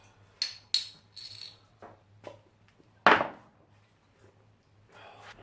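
Sharp metallic clinks of steel being handled at the forge: a few light clinks in the first couple of seconds, then one louder clank about three seconds in.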